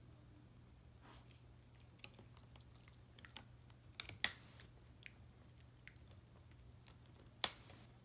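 Irish terrier chewing and gnawing a wooden stick, the wood giving small irregular cracks and crunches, with sharper snaps about four seconds in and again near the end.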